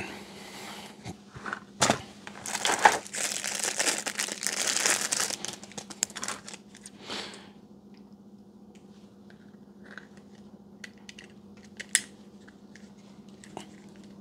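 Plastic wrapping crinkling and rustling for about the first seven seconds as a Baofeng UV-5R handheld radio and its battery pack are unwrapped. Then scattered small clicks and taps as the battery is handled and fitted to the back of the radio, with one sharp click about twelve seconds in.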